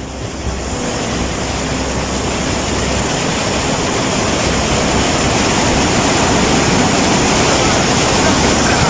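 Loud, steady rush of fast-flowing floodwater, growing a little louder over the first few seconds.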